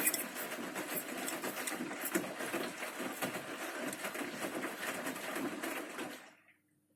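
Bosch Series 6 Vario Perfect front-loading washing machine's drum turning the wet wash load, a steady churning slosh with light clicks. It cuts off suddenly about six seconds in.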